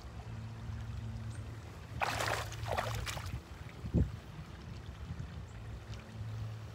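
Shallow ditch water splashing as a magnet-fishing rope is hauled in, with a burst of splashing about two seconds in and a short low thump about four seconds in, over a steady low hum.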